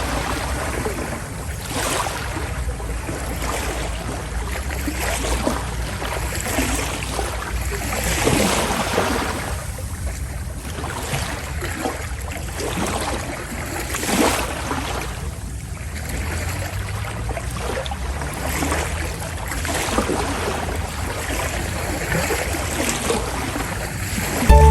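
Passenger ferry under way: a steady low engine rumble beneath sea water rushing and splashing along the hull in uneven swells.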